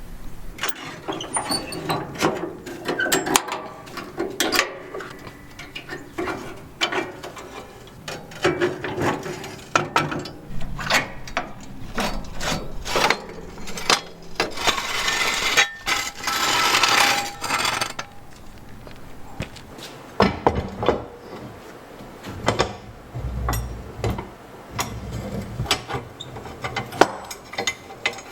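Hand tools working on metal tractor parts: irregular clicks, clinks and knocks, with a couple of seconds of steady rasping noise a little past the middle.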